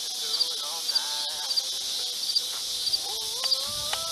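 Steady high-pitched insect buzzing across an open field, pulsing in a quick double chirp about twice a second. A faint drawn-out call rises in pitch and holds near the end.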